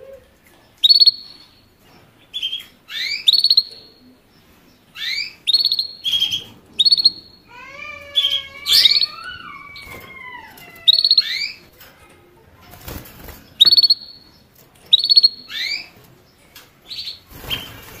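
Finch song, canary-type: a series of short, sharp chirps repeated at irregular intervals, with a longer run of gliding, warbled notes about halfway through. Two brief rustling bursts come near the end.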